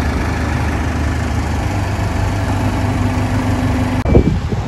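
Tractor engine running steadily at an even speed. About four seconds in the sound cuts off abruptly and gives way to wind on the microphone.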